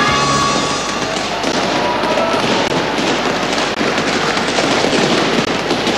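A large party crowd's loud, dense din, peppered with crackling pops, as music fades out in the first second or two.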